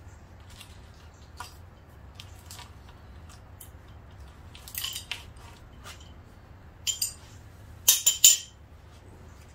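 Hand tool working a glued rubber grip loose on a motorcycle handlebar to break the factory glue: scattered small scrapes and clicks, with a quick group of sharper clicks about eight seconds in.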